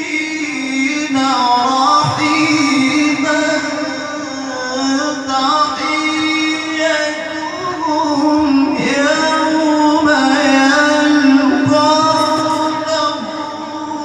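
A male qari recites the Quran in the melodic tilawah style into a microphone. He holds long notes and ornaments them with melismatic turns.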